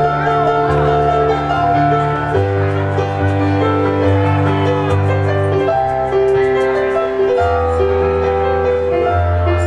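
Instrumental keyboard music: sustained chords over a bass line that changes note every second or two, with no singing.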